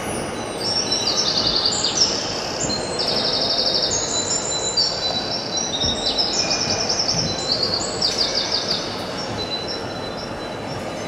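Birdsong: a run of high-pitched bird chirps and rapid trills, one phrase after another, thinning out near the end, over a steady low background noise.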